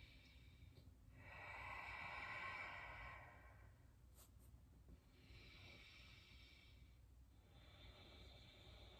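Faint, slow deep breathing: one long, fuller breath starting about a second in, then two softer breaths about five and eight seconds in.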